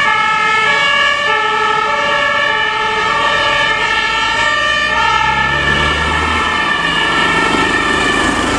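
German fire-engine two-tone siren (Martinshorn) on hook-lift trucks responding with blue lights, switching back and forth between two pitches. A low vehicle rumble rises underneath about five seconds in and fades a second and a half later.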